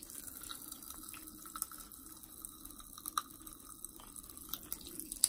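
Pop Rocks popping candy crackling in a mouth: faint, irregular little pops and snaps as the carbonated sugar fizzes on the tongue.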